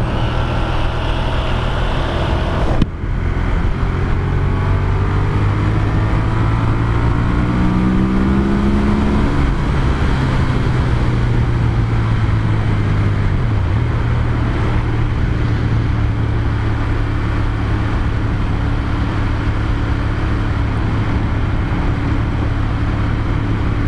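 Ducati Monster 1200S's L-twin engine running steadily on the road, with wind rush at the helmet. There is a short break in the sound about three seconds in, and the engine pitch climbs a little around eight seconds in.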